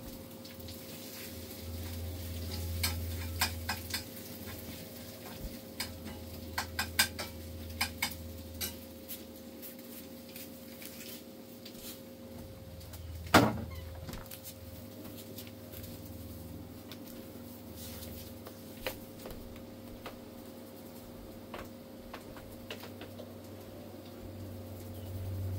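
Quiet household background: a steady low hum with scattered light clicks and ticks, a cluster of them in the first third and one sharper, louder click about halfway through.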